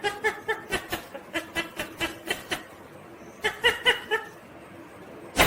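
Ringneck parakeet chattering in a rapid string of short, pitched calls, about five a second, then a shorter burst of them about three and a half seconds in. A sharp click comes near the end.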